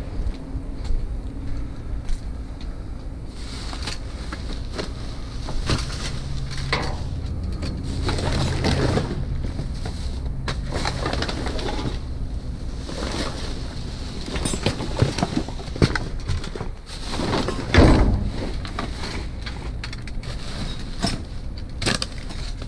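Rummaging through trash bags and discarded goods in a dumpster: plastic rustling and crinkling with irregular knocks and clatter of items. A loud knock about eighteen seconds in, over a steady low hum.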